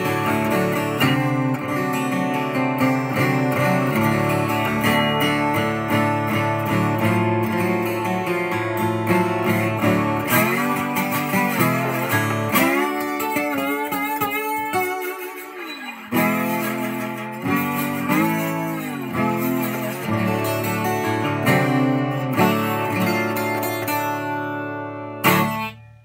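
Seagull S-Series S12+ 12-string acoustic guitar tuned to open D, picked and strummed, with slide passages where the notes glide up and down in the middle. The playing stops abruptly near the end.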